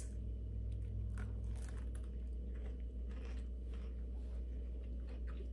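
A person biting into and chewing a warm, buttered zucchini cheddar drop biscuit with a crisp crust: soft, irregular crunching and mouth sounds over a steady low hum.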